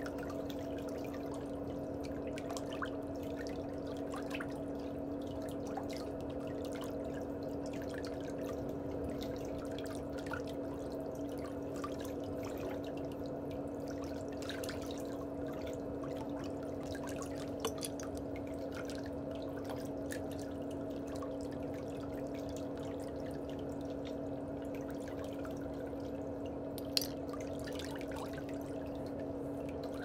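Steady trickling pedicure water with a low steady hum beneath it. A few sharp clicks of steel nail nippers at a big toenail's edge cut through it, the sharpest near the end.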